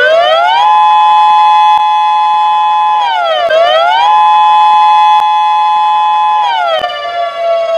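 Emergency-alert alarm siren, two tones sounding together. They glide up to a steady high pitch and hold, dip and climb back about halfway through, then slide down to a lower held pitch near the end.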